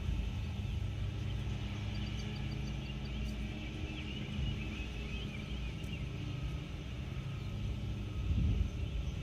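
Steady low rumble of a distant freight train, with birds chirping faintly over it. The rumble swells briefly near the end.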